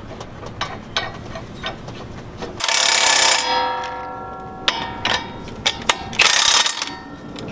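Cordless impact wrench running the brake caliper bracket bolts down tight, in two short bursts, the first about two and a half seconds in with a whine winding down after it, the second about six seconds in. Light metal ticks of the socket and bolts being handled come in between.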